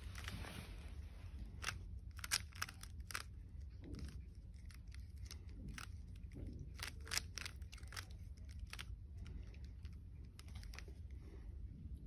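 A plastic 3x3 Rubik's cube being turned by hand, its layers clicking in quick irregular runs with short pauses between.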